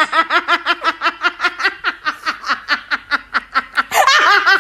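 A person laughing hard: a long, high-pitched run of quick breathy "ha" pulses, about six a second, fading a little and then breaking out louder again near the end.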